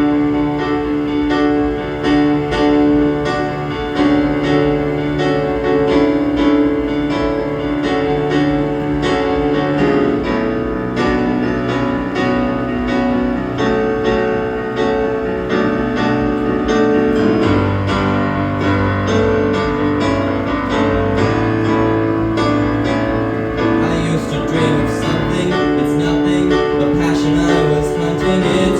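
Piano-style keyboard playing the instrumental accompaniment of a song: held chords over a steady pulse, with a deeper bass line coming in a little past halfway.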